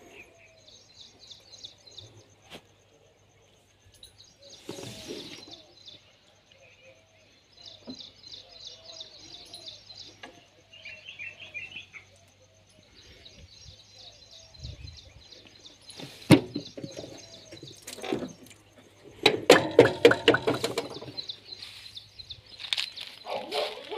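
Birds chirping in repeated short phrases. About two-thirds of the way through, a run of sharp clicks and a couple of seconds of dense rattling clatter stand out as the loudest sounds.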